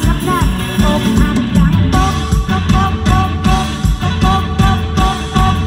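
Live mor lam band music played loudly through a concert PA system, with a steady drum beat, a repeated melody line and a singer's voice.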